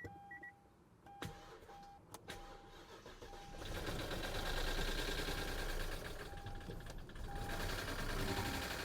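Car's chime beeping on and off and a few clicks, then about three and a half seconds in the engine is cranked and runs with a steady mechanical din. The noise from under the car is one the mechanic calls 'not a good noise'.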